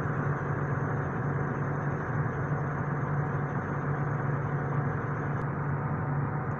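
Diesel engine of a machine idling steadily while it charges a flat excavator battery through jumper cables.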